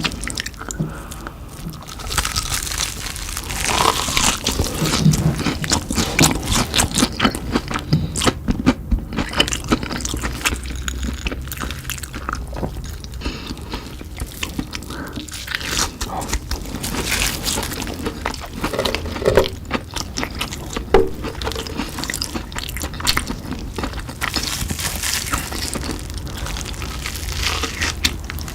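Close-miked ASMR eating: bites and chewing of a crunchy potato snack, a dense run of irregular crackling crunches with no speech.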